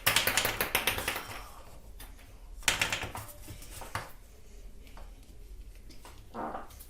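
Plastic clicking and rattling as a toy ball-bullet pistol is handled and loaded: a quick flurry of clicks in the first second or so, then a few single clicks.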